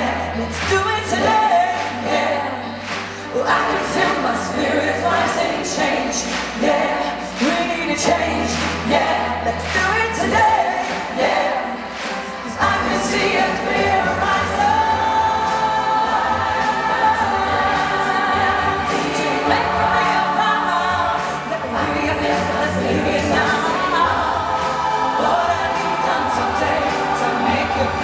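Large mass choir singing a pop song in harmony over a bass and drum backing, heard from the audience in a big arena.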